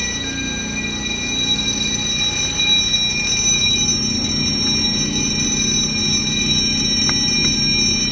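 Fire alarm bells and sounders of a conventional fire alarm system ringing continuously during a test set off from a manual call point. A few short clicks come near the end.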